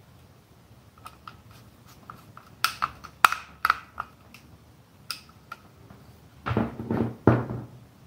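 Hands handling wires, a screwdriver and plastic push-button parts: scattered small clicks and knocks, a few sharper clicks about three seconds in, and a louder clatter of handling near the end.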